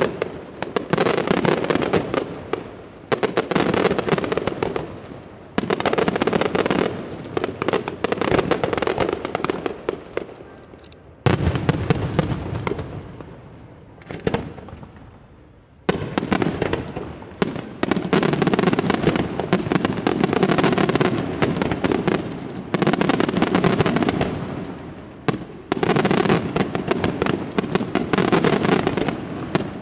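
Aerial fireworks display: dense volleys of shell bursts and crackling bangs in waves, each starting suddenly and dying away over a few seconds. The firing thins out around ten and again around fourteen seconds in, with one sharp heavy bang between, then resumes densely.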